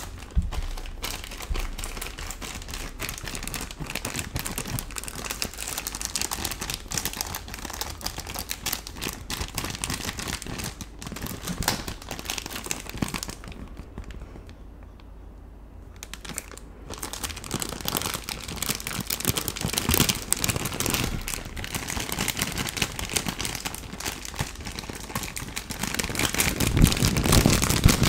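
Clear plastic retail bag around a rhinestone phone case crinkling and crackling under the fingers, with a short lull about halfway through. It gets louder near the end as the bag is pressed against a fluffy microphone cover.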